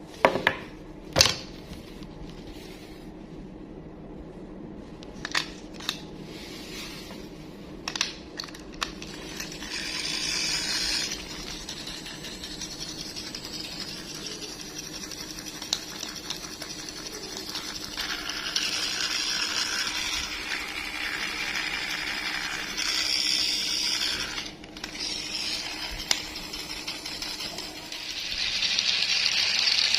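Toy packaging being handled during an unboxing: a few sharp clicks and taps in the first several seconds, then stretches of scratchy rustling and scraping of packaging that come and go.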